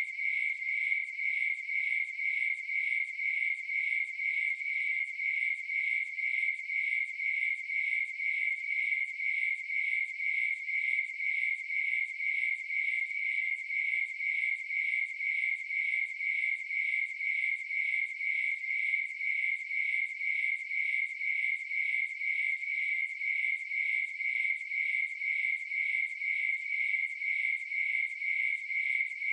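Crickets chirping: a high, even trill pulsing in a steady rhythm that never breaks.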